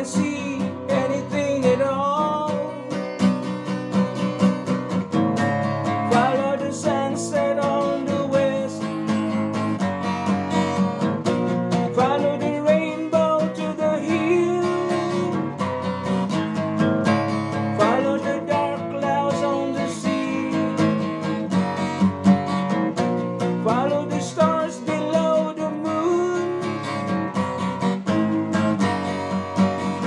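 Acoustic guitar strummed steadily through an instrumental break in a slow ballad, with a wordless melody line gliding above the chords.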